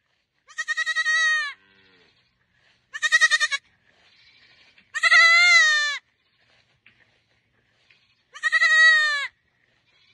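Baby goat bleating four times, high calls each about a second long with a quavering start.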